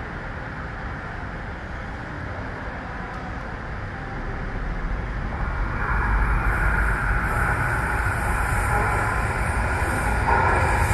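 Incheon Line 2 light-rail train approaching along an elevated track, its running noise growing steadily louder from about four seconds in, with a jump near six seconds and a sharper metallic edge near the end as it nears the platform.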